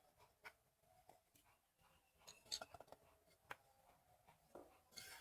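Near silence with scattered faint clicks and taps, a few close together about halfway through.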